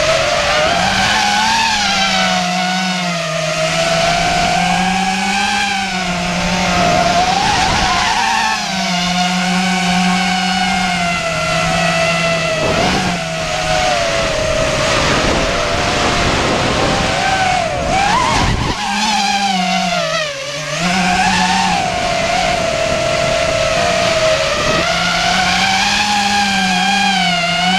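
Brushless motors and propellers of a ZMR 250 racing quadcopter, recorded by the GoPro mounted on it: a loud, steady whine that swings up and down in pitch as the throttle changes during freestyle flight. It dips briefly about two-thirds of the way through as the throttle is cut.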